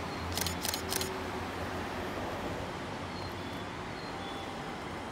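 Aoimori Railway 701 series two-car electric train approaching in the distance, a faint steady running rumble. Three sharp clicks come within the first second.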